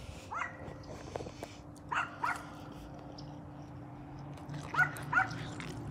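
Dog giving short, high whines, five of them spread across the few seconds, each one brief.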